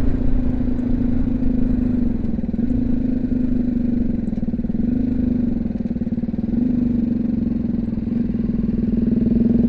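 BMW G310GS's single-cylinder engine running at a steady road speed, its pitch holding even and lifting slightly near the end. Low wind rumble sounds on the helmet microphone underneath.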